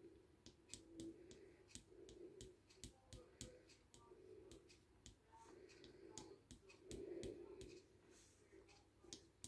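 Faint, scattered clicks and soft scratching of a wood-burning (pyrography) pen nib worked in short strokes over a wooden tile.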